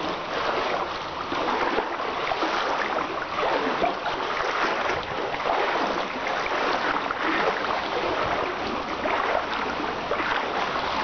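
Shallow creek water rushing and splashing steadily, heard close to the water's surface.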